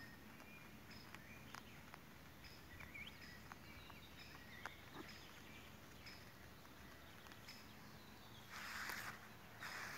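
Near silence: faint outdoor ambience with scattered small ticks and a few short chirps, and a brief rustle in the grass near the end.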